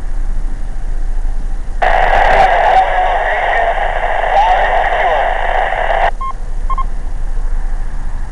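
A weak two-metre FM amateur radio transmission over a transceiver's speaker: about four seconds of a station's reply, starting about two seconds in, so buried in static that the words are lost. It ends in two short beeps.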